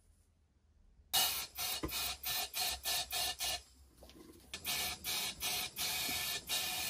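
Rapid back-and-forth rasping strokes, about three a second, as the metal body of a small bullnose plane is abraded by hand. The strokes start about a second in, pause briefly midway, then resume.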